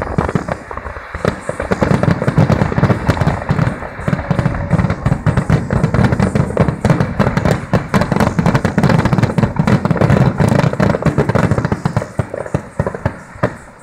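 Aerial fireworks finale: a dense barrage of shell bursts going off in rapid succession, thinning out and dying away near the end.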